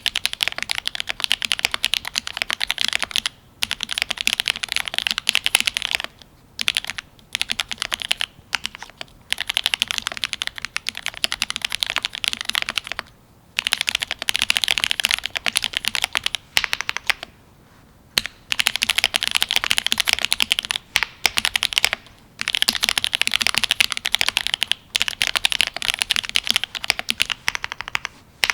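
Fast typing on a Cyberboard R3 mechanical keyboard with lubed Gateron Ink Black linear switches, an aluminium plate and GMK keycaps. The keystrokes come in dense runs of several seconds broken by brief pauses.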